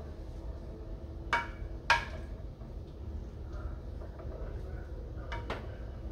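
A black slotted spoon knocking against a glass baking dish while vegetables are stirred in it: two sharp taps about a second and a half in, then two more near the end, over a steady low hum.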